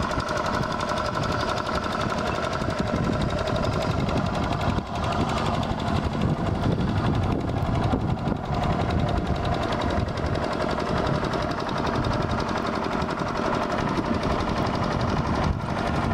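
Two-wheel walk-behind tractor's single-cylinder diesel engine chugging steadily under load as it ploughs, with a rapid, even firing beat.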